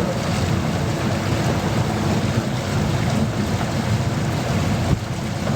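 Steady low motor rumble of a Li River raft under way, mixed with water and wind noise on the microphone.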